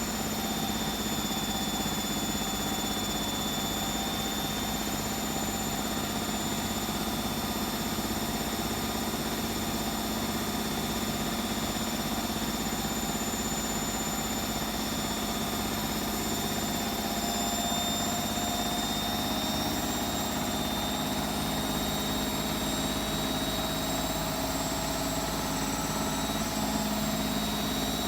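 Hotpoint WMFUG742 washing machine spinning an overloaded load of towels at speed: a steady motor hum with high whining tones over it, one tone creeping up a little in pitch in the second half.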